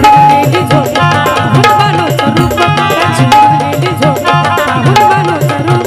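Marathi folk devotional music: a dholki drum beating a quick, even rhythm under a melodic accompaniment.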